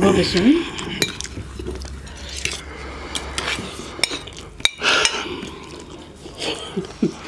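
Metal spoon and fork clinking and scraping against ceramic plates during eating, a scattered series of short sharp clinks.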